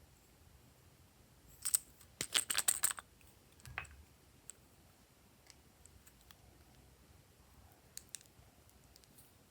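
Glossy slime being squished and pressed by hand, giving sticky clicks and pops: one near two seconds in, a quick run of crackling pops just after, then scattered faint clicks.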